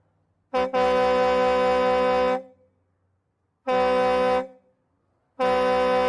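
Truck air horn sounding in separate blasts at one steady pitch, each starting and stopping abruptly: a quick tap running into a blast of about two seconds, a short blast, then a long blast starting near the end.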